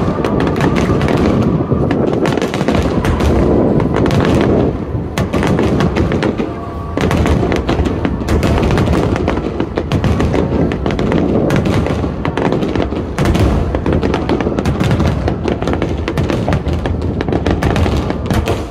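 Aerial fireworks shells bursting in a dense, rapid barrage: loud bangs and crackles one after another with hardly a pause.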